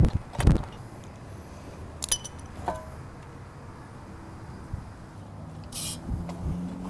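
Metal parts knocking and clinking as the old oil-pan baffle is lifted out of the oil pan and handled: two heavier knocks in the first second, then two short ringing clinks about two seconds in. A short hiss comes near the end.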